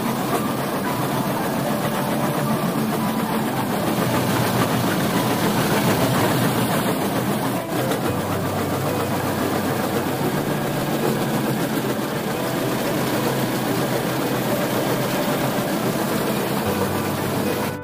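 Quarry rock-crushing plant running: a jaw crusher crushing stone, with its conveyors, making a steady, dense mechanical din.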